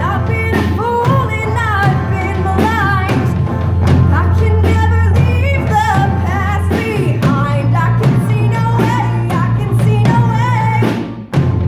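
Live rock band playing, with a female singer over electric guitar, strummed guitars and drums and a heavy bass. The band breaks off briefly near the end before the music comes back in.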